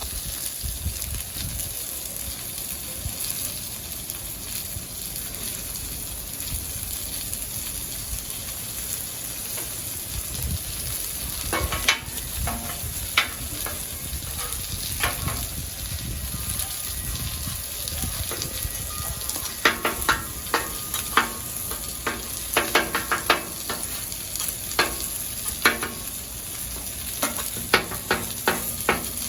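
Food sizzling steadily on a Blackstone flat-top griddle, with metal spatulas scraping and clacking against the steel cooktop, a few times about halfway in and often in the later part.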